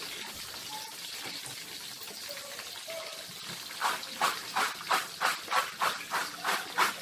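Potato chips sizzling in hot oil in a frying pan, a steady hiss. From about four seconds in, a quick run of sharp utensil strokes, about three a second.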